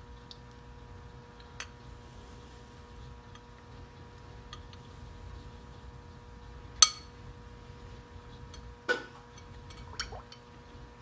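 A few sharp clinks of metal clips and pliers against a glass jar of plating solution, the loudest about seven seconds in, over a faint steady hum.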